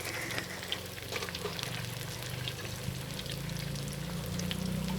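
Thai fish cakes deep-frying in a pan of hot oil: a steady sizzle with many small crackles and pops, over a low steady hum.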